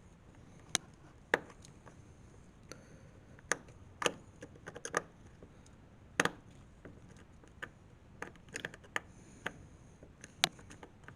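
Screwdriver clicking and knocking against a door handle's metal screws and fittings while they are tightened: about a dozen sharp, irregular clicks, some in quick little runs.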